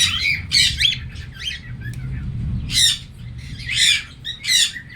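Male cockatiel calling to his mate: about half a dozen separate high, warbling squawks, coming irregularly.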